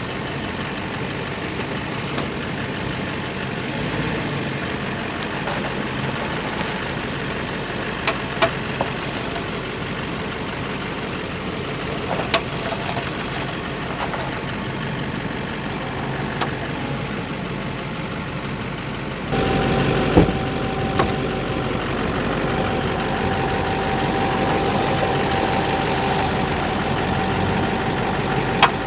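Chevrolet Silverado 2500's Duramax diesel idling, with a few sharp pops from the front end as the steering is turned. From about two-thirds through, a steady whine joins in. The owner later traced the popping to loose engine crossmember bolts.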